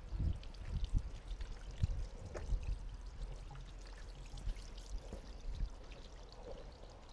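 Water pouring and trickling, with a low uneven rumble and scattered faint ticks underneath.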